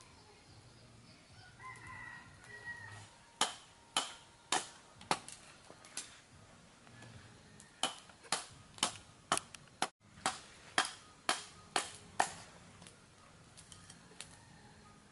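Sharp strikes of a large knife blade chopping into a stick to split kindling, about two a second in two runs with a short pause between. A rooster crows once in the background just before the chopping starts.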